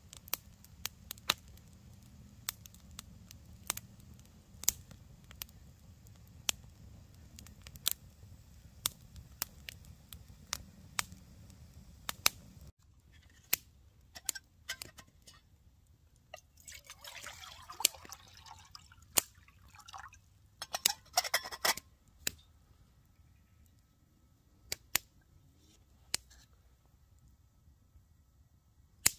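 Split-wood campfire crackling, sharp pops over a low steady rumble of flames. After a sudden cut a little under halfway, a stainless steel camping mug being handled: scattered metal clinks and a short spell of liquid pouring into it.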